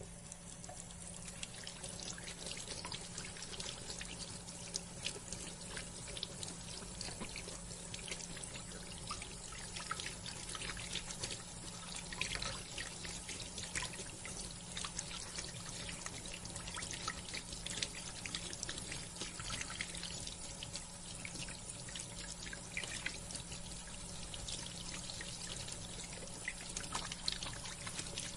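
Water running from a bathroom sink faucet into a porcelain basin: a steady splashing stream with small drips and spatters throughout, coming on right at the start.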